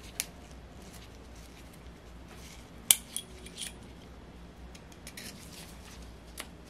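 Light metallic clicks and clinks as a ball bearing is worked onto a Saito model engine's crankshaft by hand. There are a few sharp clicks, the loudest about three seconds in with a short ring.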